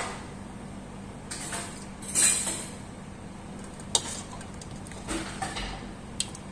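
Metal ladle scraping and clinking against a stainless steel pot of couscous stew: a few short scrapes and light clinks, the loudest about two seconds in, with sharp clicks around four and six seconds in.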